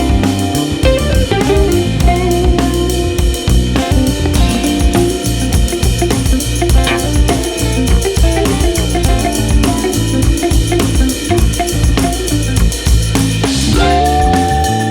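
Background music with a drum kit beat and a steady bass line.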